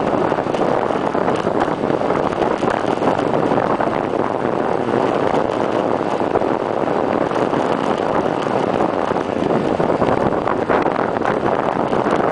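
Steady rushing wind noise on the microphone of a camera fixed to a bicycle's stem, from the bike's speed on a downhill run.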